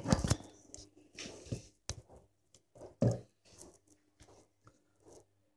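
Hands turning over and setting down the plastic housing of a VIS motor on a wooden worktop: a scattering of light knocks and clicks, the loudest at the start and about three seconds in.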